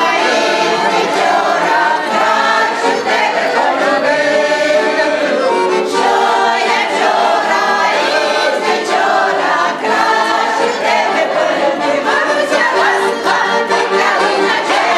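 A choir singing continuously.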